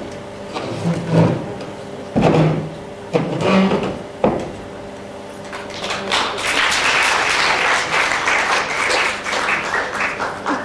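Audience applauding, starting about six seconds in and stopping near the end, after a few knocks and thumps in the first half.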